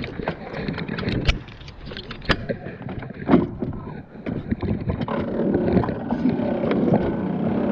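Sharp knocks and bumps on a metal john boat as it is worked past a fallen log. From about five seconds in, an electric trolling motor runs steadily, churning the water.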